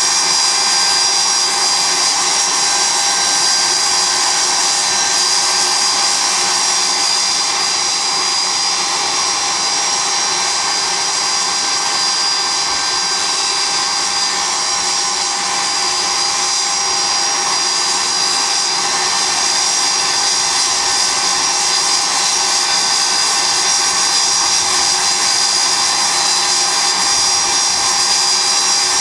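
The twin Rolls-Royce Spey turbofans of a Blackburn Buccaneer running steadily on a ground run: a loud, even jet rush with a steady high-pitched turbine whine over it.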